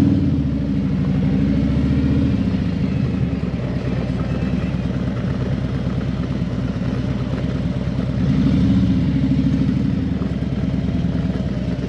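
Harley-Davidson V-twin motorcycle engine running under way, its pitch and loudness rising and falling near the start and again about eight seconds in as the rider works the throttle.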